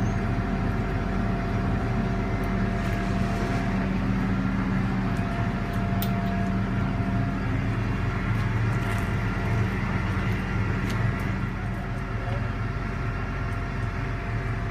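Crane engine running steadily at a constant speed, with a few faint sharp clicks of metal on metal.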